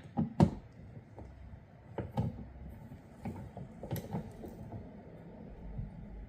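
Scattered light clicks and taps of a Torx driver and hands working a car door lock cylinder as its retaining bolt is slowly loosened.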